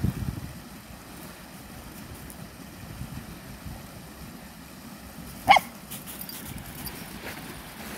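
Samoyed puppy giving a single short, high yip about five and a half seconds in, over a low background rumble.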